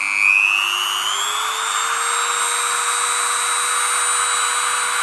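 BDCAT 180 W Dremel-type rotary tool running free, switched up to its third speed setting. Its motor whine rises in pitch over the first second and a half, then holds steady.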